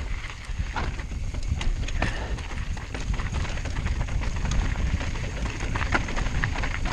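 Mountain bike descending a rocky dirt trail: wind buffets the microphone with a steady low rumble while the tyres run over gravel, and the bike knocks and rattles sharply each time it hits a rock, at an irregular pace.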